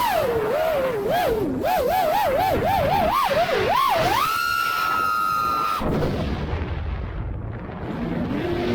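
FPV quadcopter's motors whining, the pitch swinging rapidly up and down with the throttle, then held at a steady high pitch for about a second and a half. About six seconds in the whine drops away to a low rumble, and it spins back up near the end.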